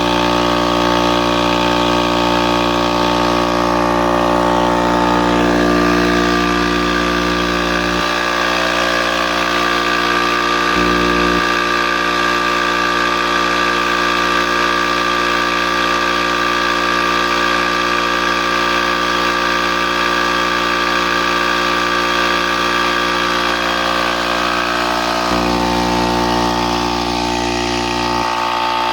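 Charge Air 5 hp, 20-gallon air compressor running steadily, its pump and motor holding an even pitch throughout. Its lowest part drops away about a third of the way through and returns near the end.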